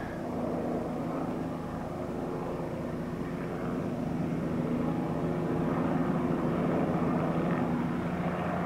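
Two helicopters in flight, their rotors and engines making a steady drone that slowly grows louder.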